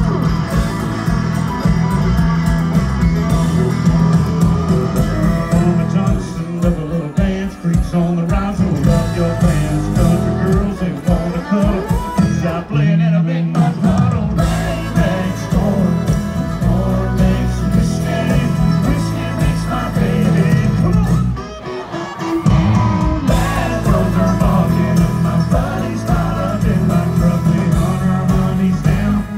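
Live country band playing with a male lead singer singing into a microphone, heard from inside the concert crowd.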